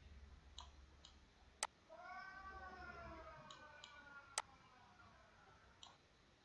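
Computer mouse clicks while drawing with the curve-line tool: a few faint clicks and two sharper ones, about a second and a half in and a little over four seconds in. Between them comes a faint, drawn-out high call that rises slightly and then slowly falls.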